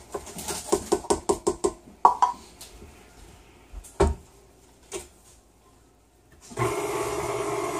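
A metal measuring cup tapped rapidly against the rim of a steel mixing bowl, then a few single knocks as the KitchenAid stand mixer's tilt head is lowered and locked. About six and a half seconds in, the mixer's motor starts and runs with a steady hum, turning its dough hook through sticky dough.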